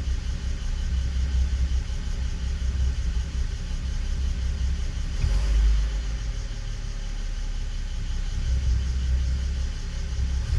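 BMW 325i E92's straight-six idling roughly on a cold start, a steady low rumble that shifts unevenly in level, with a brief louder lurch about halfway: the engine is misfiring.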